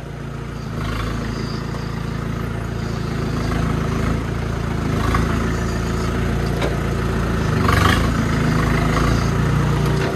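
A tractor engine running steadily while the tractor is steered and driven at low speed, getting gradually louder.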